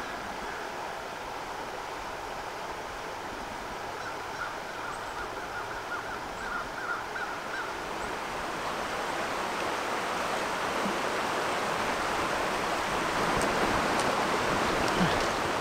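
Creek water rushing over a shallow riffle, a steady rush that grows gradually louder. Faint bird calls come and go in the middle.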